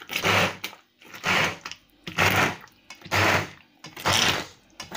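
Immersion hand blender pureeing a chunky vegetable sauce in a stainless steel pot, its motor switched on in short bursts about once a second, five times.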